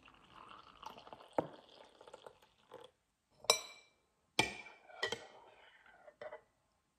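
Hot water poured from a stainless steel kettle into a ceramic teacup for about three seconds, then a metal spoon stirring in the cup and clinking against it several times.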